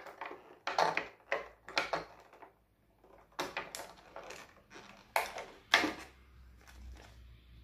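Small parts of a Joby TelePod selfie-stick tripod being handled: a dozen or so irregular knocks and clicks in short groups, fading near the end.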